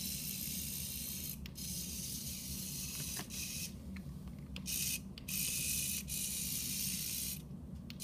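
Small electric motor of a remote-control toy mole drill vehicle whirring as it drives on a tile floor. The whir cuts out briefly about four times as the controls are let go and pressed again.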